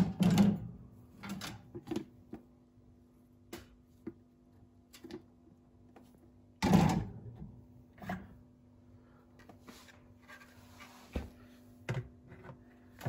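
Scattered knocks and clatters of dishwasher racks and parts being handled and slid, with the loudest bangs at the start and about halfway through. A faint steady low hum runs underneath.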